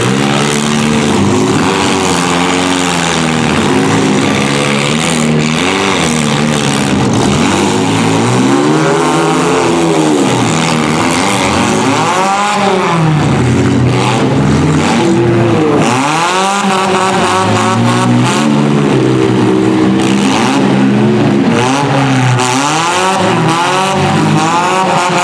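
Several small four-cylinder demolition derby cars' engines revving up and falling back over one another, in repeated rising and falling swells as the cars drive and ram in the arena.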